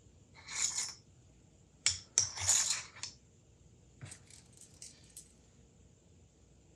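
Small hard parts being handled on a workbench: a short clinking rattle about half a second in, two sharp clicks and a longer rattle around the second and third seconds, then several lighter clicks.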